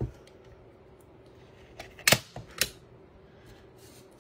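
Heavy-duty manual staple gun firing a staple into a thick cardboard tube: one loud, sharp snap about two seconds in, then a second, lighter clack half a second later. The trigger needed two hands to squeeze.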